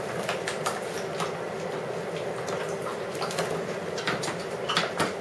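Puppies' claws clicking and skittering irregularly on a tile floor as they scuffle and tug, over a steady low hum. A few louder clicks come near the end.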